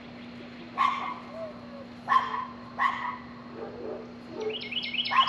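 A dog barks three short, sharp barks within about two seconds. Near the end a bird starts a fast run of high, repeated chirps, over a steady faint hum.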